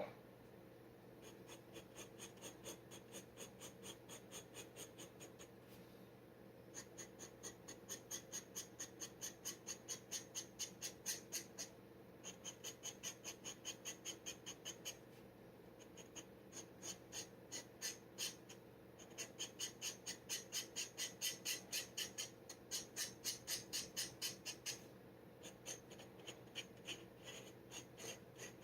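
Steel G nib of a dip pen scratching across paper in quick repeated strokes, about four a second, in runs of a few seconds with short pauses between.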